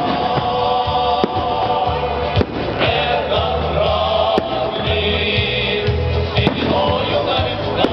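Choral music with a steady low bass pattern, overlaid by scattered firework bangs, about five sharp reports spaced a second or two apart.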